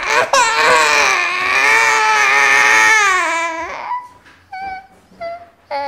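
Toddler crying: one long wail of about three and a half seconds that trails off, then several short sobs. It is a protest cry at having his food taken away.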